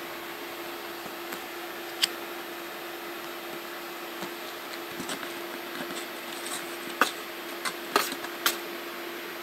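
Steady low electrical hum in a small room, with soft rustling and a few sharp clicks: one about two seconds in, then several close together in the last few seconds.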